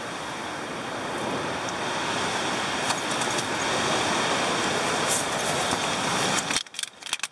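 Gale-force wind rushing against and shaking a Snow Peak Amenity Dome tent, a steady loud roar that slowly builds, then cuts off sharply near the end, leaving a few light clicks.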